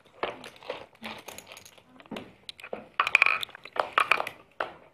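Poker chips clicking and clacking on a felt table as the bets are gathered into the pot, with a few short sharp clicks and brief chip rings about three seconds in. Low chatter from players at the table.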